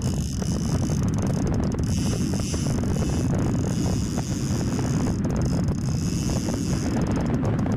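Steady low rumble of wind buffeting the microphone, with the noise of a running boat underneath.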